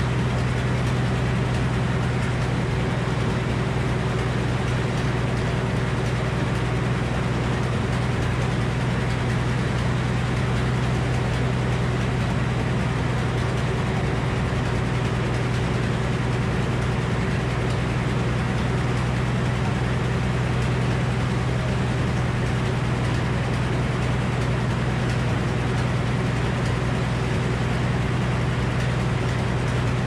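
Old Frick sawmill running steadily, its large circular head saw spinning free without cutting, a constant machine hum at an even level.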